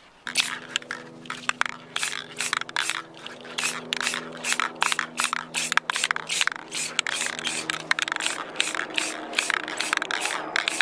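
Aerosol spray paint can hissing in quick short bursts, about three a second, starting about a quarter second in, as black paint is sprayed onto plastic trim panels.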